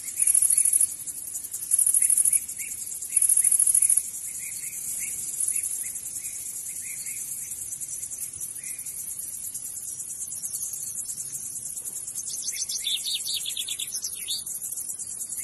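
Insects buzzing in a high, steady drone, swelling louder three times in the first few seconds, with birds chirping now and then over it and a run of quicker chirps near the end.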